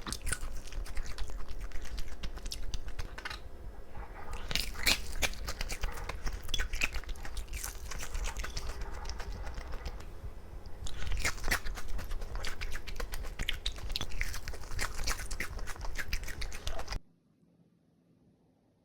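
A person biting and chewing crunchy fried chicken, with many crackly crunches that stop abruptly near the end.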